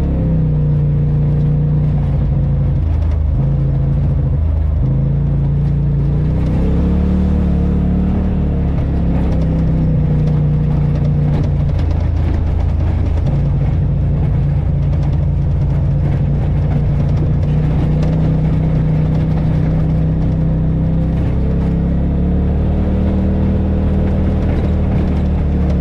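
Side-by-side UTV engine running steadily at low trail speed, its pitch rising and falling a little as the throttle changes, with a continuous drivetrain drone.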